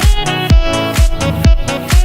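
Music with a steady kick drum, about two beats a second, under sustained synth-like tones.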